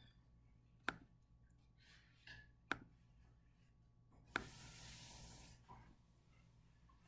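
Near silence broken by three sharp clicks about two seconds apart, like computer mouse clicks, with a soft hiss lasting about a second right after the third.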